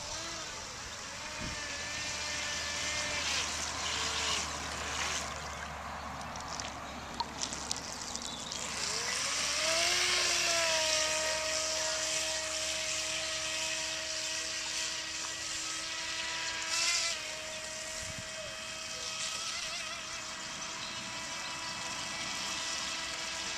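Battery-powered RC speedboat's electric motor whining as it runs across the water. The pitch rises about ten seconds in, then holds steady at speed, with a brief dip a few seconds before the end.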